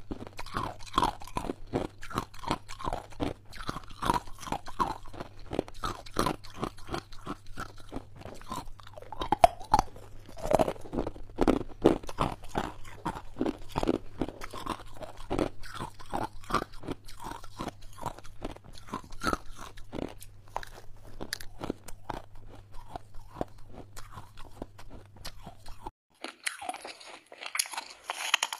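Close-miked crunching and chewing of hard ice, several sharp crunches a second. About two seconds before the end, an abrupt cut leads to a softer, hissier crunch of freezer frost being bitten.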